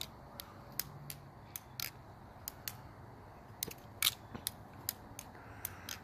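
Metal-handled balisong (butterfly knife) being flipped through a loop, its handles clacking against each other and the blade: a string of sharp metallic clicks at an uneven pace, the loudest about four seconds in.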